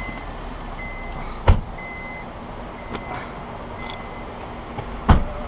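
A car's electronic warning chime beeping steadily, five high beeps about one a second, stopping about four seconds in. Two heavy thumps come about a second and a half in and again near the end.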